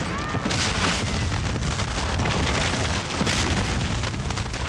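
Battle sound effects: a continuous din of cannon booms and bursting shells with scattered gunfire.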